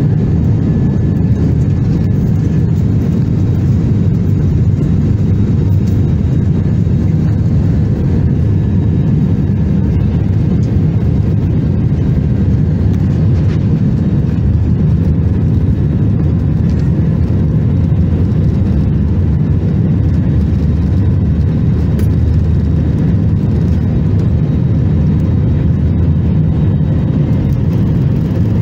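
Steady low rumble of an Airbus A321's engines and airframe, heard from inside the cabin while the airliner taxis.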